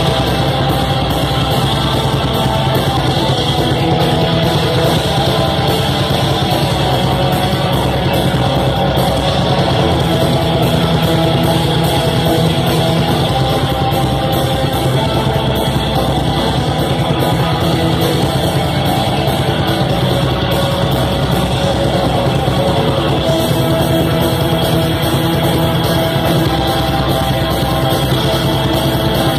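Live black metal band playing loud: distorted electric guitars over drums in a dense, unbroken wall of sound.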